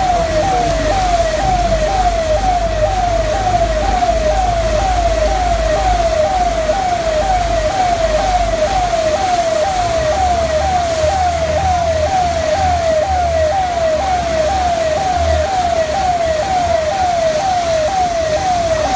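Emergency vehicle siren sounding a fast, repeating wail of about two sweeps a second, held steady throughout, over a low rumble.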